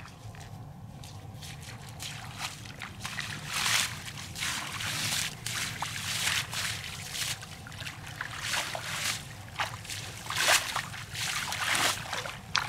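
Bare feet splashing and sloshing through shallow floodwater in grass, a string of irregular splashes starting about two seconds in.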